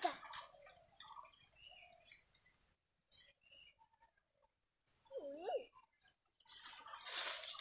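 Small birds chirping, with a run of quick high chirps over the first couple of seconds and a few more about five seconds in. A short rustling noise comes near the end.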